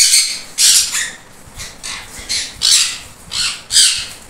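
Aviary conures giving a series of short, harsh, high-pitched screeches, several in quick succession with brief gaps between them.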